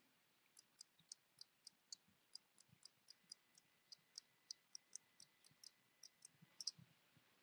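Faint computer mouse button clicks in a quick, uneven run of about three a second, each click placing another point of the outline.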